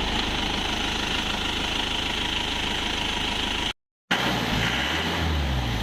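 Isuzu truck engine idling steadily. About three and a half seconds in the sound cuts out for a fraction of a second, then the running resumes with some uneven low rumbling.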